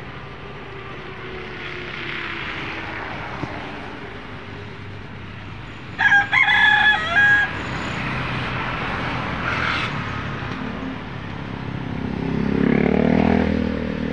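A rooster crows once, about six seconds in: a loud crow lasting about a second and a half that falls in pitch at the end. Near the end a vehicle passes on the road, swelling and then fading.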